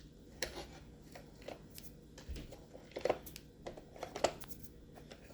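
Faint, scattered clicks and rustles of hands handling plastic Roomba robot-vacuum parts while picking debris off them.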